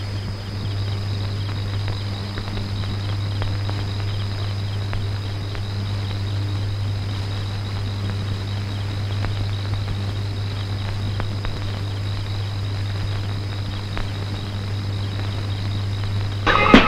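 Night-time film soundtrack ambience: insects chirping in a steady high trill over a constant low hum. Music breaks in loudly right at the end.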